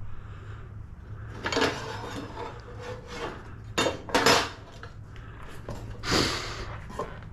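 Metal clamps clinking and knocking against wooden boards as they are handled and set in place: a few separate clatters a second or two apart, over a steady low hum.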